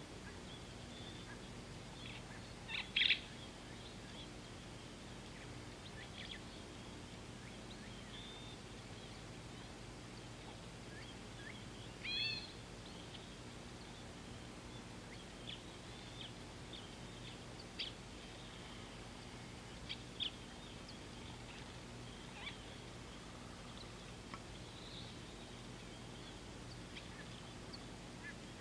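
Scattered short bird calls and chirps over a steady low background hum. The loudest is a quick double chirp about three seconds in, with a brief call near twelve seconds.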